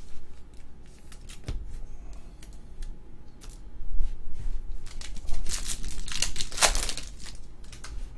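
Trading cards and a clear plastic card sleeve being handled: scattered light clicks and rustles, with a louder stretch of plastic crinkling about six seconds in.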